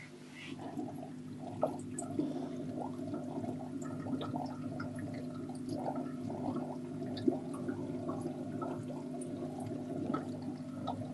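Aquarium water bubbling and trickling, many small pops over a steady low hum, swelling in during the first second and then holding steady.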